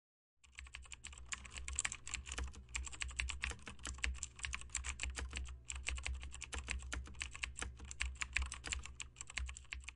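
Computer keyboard typing sound: rapid key clicks with a brief pause about halfway through, over a steady low hum.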